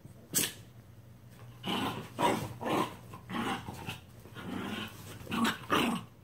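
Shiba Inus play-wrestling, growling in a quick run of short rough bursts that begins about a second and a half in, with a single sharp sound shortly after the start.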